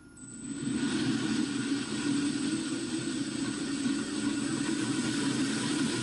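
Electric walk-behind planetary floor grinder running on metal-bond diamonds against a concrete slab: a steady motor hum with a grinding hiss and a thin high whine on top. It swells up over the first second, then holds even.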